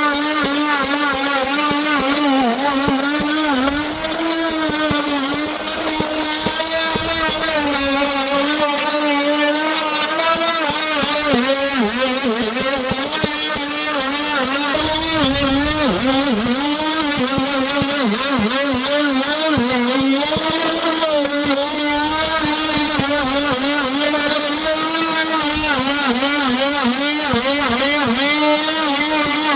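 A power tool's electric motor running continuously, its pitch dipping and recovering over and over as it takes load while cutting wood.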